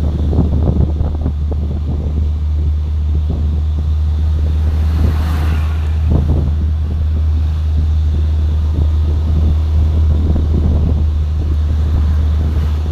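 Vehicle on the move: a steady low drone of engine and road noise, with wind buffeting the microphone.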